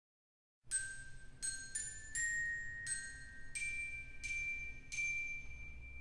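Glockenspiel-like bell tones from the church organ, picking out a slow Christmas melody one note at a time, each note struck and ringing away. The music starts out of silence a little under a second in.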